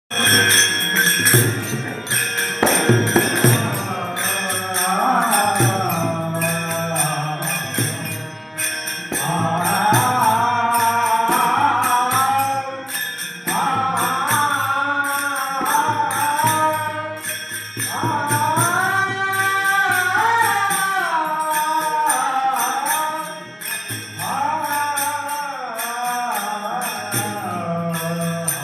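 Marathi devotional bhajan: a voice singing long, bending melodic phrases over instrumental accompaniment, with a steady rhythmic jingling percussion running underneath.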